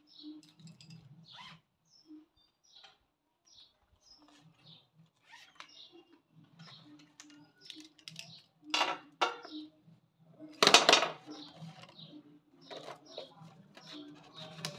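Plastic pens and markers dropped into a rolled paper-card tube, clattering a few times a little past the middle, the loudest about two thirds of the way through. Birds call in the background.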